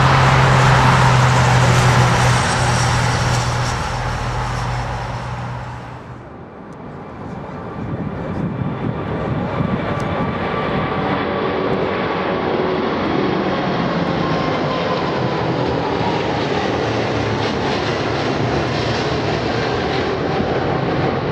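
Jet engine roar from a landing Airbus A380, with a strong low hum, fading out about six seconds in. After a cut, a second A380's four engines roar steadily as it climbs out on takeoff, with a faint, slowly falling tone in the noise.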